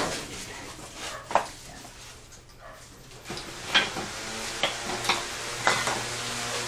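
A few sharp clicks and knocks of metal parts and tools being handled on a workbench. From about three seconds in, a steady whirring hiss of an electric motor with a low hum sets in and keeps going.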